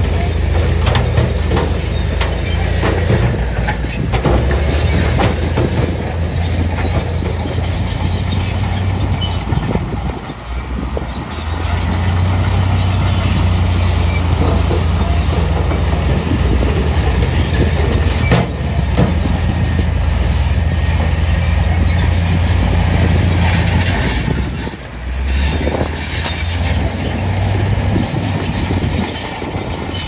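Dump truck's diesel engine running with its bed raised, as a load of earth and rocks slides out and tumbles onto the pile.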